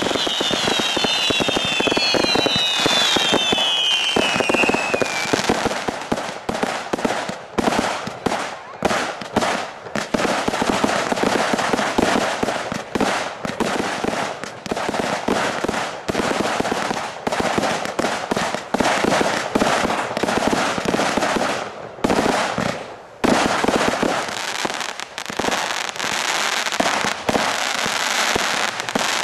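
Fireworks display: several whistles falling in pitch in the first few seconds over a dense crackle, then a long run of rapid bangs and crackling from bursting shells. There is a short lull about 22 seconds in.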